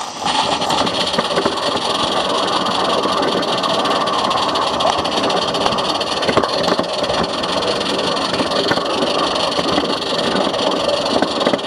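16mm-scale live-steam garden railway train running along its track, heard from a camera riding on board: a steady, dense rattle and clatter full of fine clicks, starting suddenly as the train moves off.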